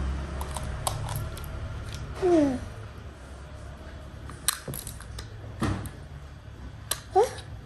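Scattered light clicks and taps of small hard plastic toy pieces being handled, with a brief falling voice-like squeak about two seconds in.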